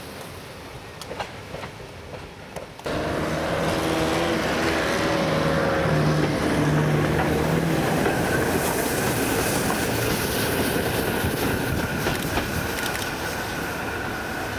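A train running past on the railway line, its steady rumble of wheels on rail starting abruptly about three seconds in, after a few seconds of wind.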